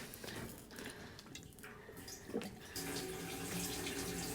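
Gasoline pouring from a portable gas tank into the fuel filler of a 1980 Jeep Cherokee Chief. The steady pouring starts about three seconds in.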